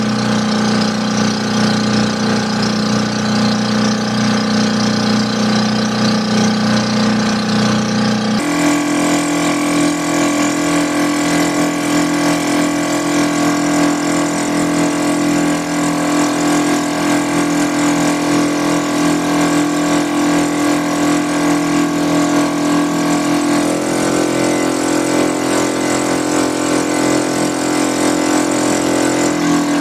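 Motorized outrigger fishing boat's engine running steadily under way, a loud, even drone that steps to a different pitch about eight seconds in and again near the end.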